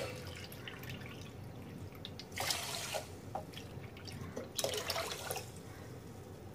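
Water poured into a steel pot of sugar to make sugar syrup: two short pours, about two and a half seconds in and again near five seconds, with dripping between.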